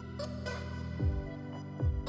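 Background electronic music with a steady beat: a deep kick drum a little more than once a second, with short high percussion hits over held synth chords.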